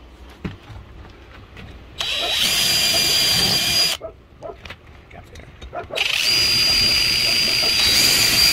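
DeWalt cordless drill pre-drilling through the metal jamb of a security screen door. It runs twice with a steady high whine: about two seconds in for about two seconds, then again from about six seconds in.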